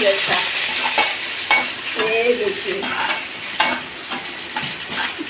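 Garlic cloves and red chilli pieces sizzling in hot oil in a kadhai, stirred with a metal turner that scrapes and clinks against the pan several times.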